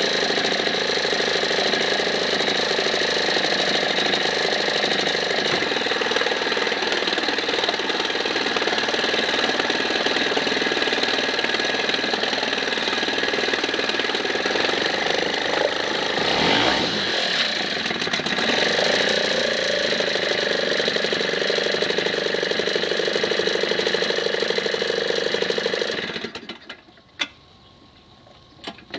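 1984 Sears Gamefisher 7.5 hp outboard motor running steadily with its lower unit in a water barrel, its note shifting briefly around the middle. About three seconds before the end it cuts out, and it is running again right at the end.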